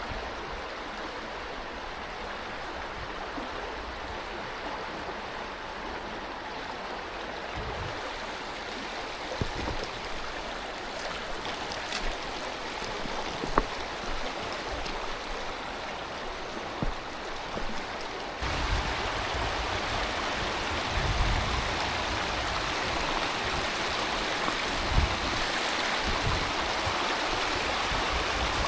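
Mountain stream water rushing steadily over rocks, becoming louder and brighter about two-thirds of the way through. A few faint knocks come in the middle, and low gusts of wind buffet the microphone.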